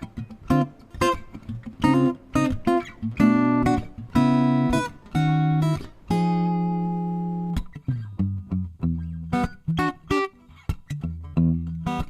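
Segovia D07 dreadnought acoustic-electric guitar being played: short picked and strummed chords, then one chord about halfway through that is left to ring out, followed by lower bass-string notes.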